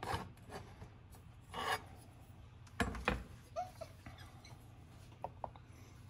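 A steel square ruler and folding knives scraped and slid across a plastic cutting board: a few short rubbing scrapes, with a soft knock about three seconds in and a few light clicks after.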